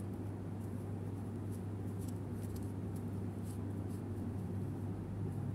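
A steady low hum with faint, scattered light ticks and rustles from a metal crochet hook working yarn.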